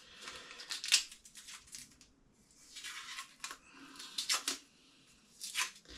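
Protective tape being peeled off a knife, several short rasping tearing pulls with pauses between them.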